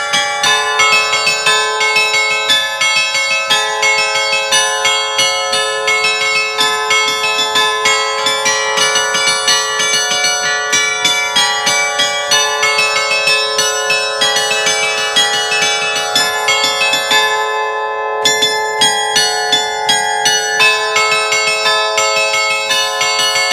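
A carillon of thirteen fixed Allanconi bronze bells tuned in A, played from a wooden baton keyboard that pulls their clappers. It plays a quick, continuous allegrezza, the festive Italian bell tune, in rapid overlapping chimes. About three-quarters of the way through, the striking stops for a moment while the bells ring on, then it resumes.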